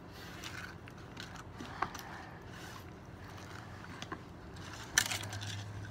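Light scraping and scattered clicks of a utensil stirring glue-and-borax slime in a container, with a sharper click near the end.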